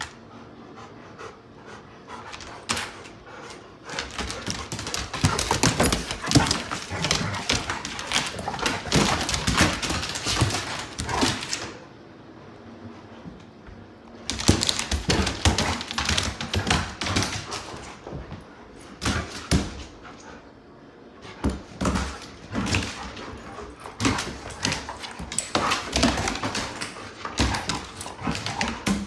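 Great Pyrenees and golden retriever play-fighting: claws clicking and scrabbling on a hardwood floor in dense flurries, with dog panting and short play vocal noises, and two brief lulls along the way.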